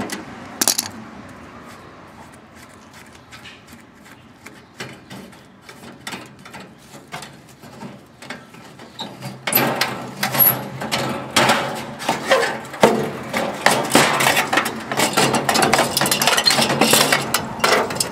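Hand tools on metal and loose metal parts clinking and rattling as an aluminum and steel part of a hot water heater is taken off. A few light clicks come at first, then about halfway through a dense run of metallic clatter.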